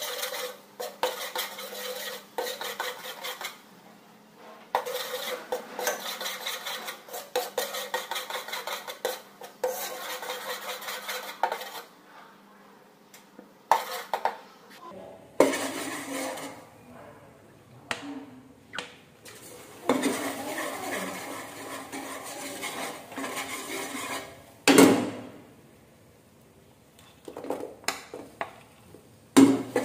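A utensil stirring and scraping thick caramelizing sugar around an aluminium pot, in stretches of several seconds with short pauses. There is one loud knock about 25 seconds in. Near the end come a few clinks as ginger slices are scraped into the pot.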